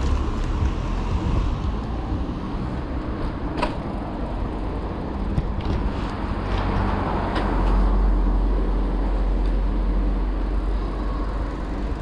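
Riding noise from a mountain bike rolling along a city street: a steady rumble of tyres and moving air on the handlebar-mounted camera, with a few sharp clicks and rattles from the bike. The low rumble grows heavier from about seven to eleven seconds in.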